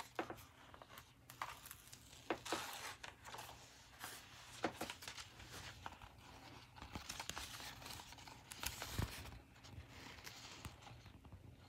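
Faint irregular crinkling and rustling of a diamond-painting canvas and its protective release paper being folded back and handled, with a soft bump about nine seconds in.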